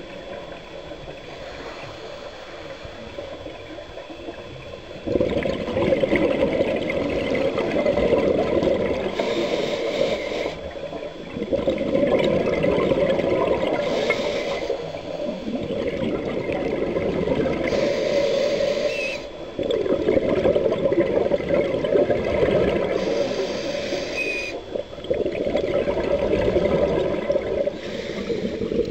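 Scuba diver breathing through a regulator underwater: loud rushes of exhaled bubbles alternate with short hisses of inhaling. From about five seconds in they come in an even cycle roughly every five seconds.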